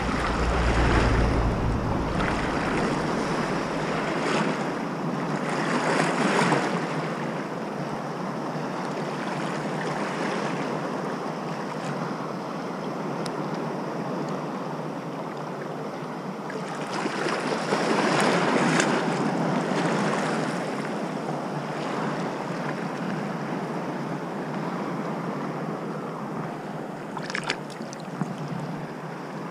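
Shallow sea water washing and lapping in slow swells, with wind buffeting the microphone, strongest in the first couple of seconds. A brief burst of sharp clicks near the end.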